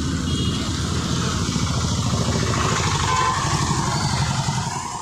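Road traffic, with a motorcycle-like engine running under a steady low rumble.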